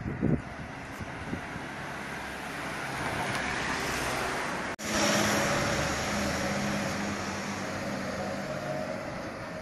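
A motor vehicle passing on the street alongside, its engine and tyre noise swelling over a few seconds, breaking off for an instant about halfway, then slowly fading away.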